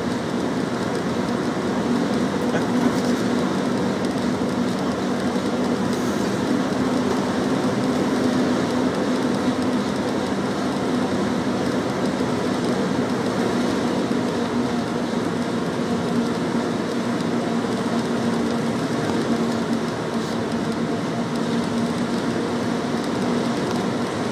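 Cabin noise of a moving bus: a steady engine drone with a constant low hum under a continuous rumble of tyres and body rattle.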